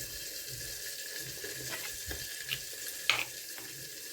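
Fish cooking with bamboo shoots in a pot: a steady wet hiss of the liquid sizzling and bubbling just after the fish goes in, with a few light clicks of a utensil against the pot.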